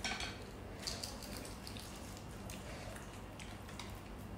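Faint scattered clicks and small crackles of balut eggshells being peeled and eaten by hand, over a low steady hum.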